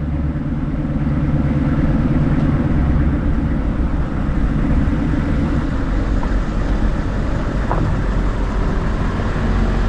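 Truck driving along a gravel road: a steady low engine drone and rumble of tyres.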